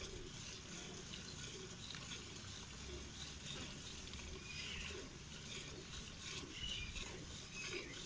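Hand milking of a desi cow: milk squirting from the teats into a steel pail, faint and steady.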